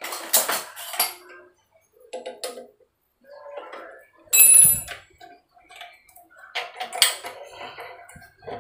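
Metal clicks, clinks and rattles from handling a bench drill press's chuck and steel table, in four irregular bursts. The loudest, about halfway through, is a sharp metallic clink that rings briefly.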